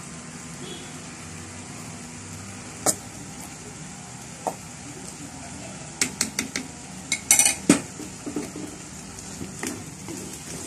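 Spoons clinking and knocking against a clay cooking pot as sauce is spooned into frying cuttlefish and the pan is stirred, with a quick run of knocks about six to eight seconds in. A low sizzle of the frying runs underneath.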